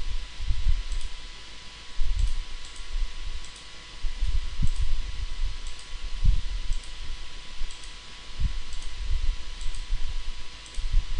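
Computer mouse clicks at irregular intervals, with dull low thumps that are louder than the clicks, over a steady hum and hiss.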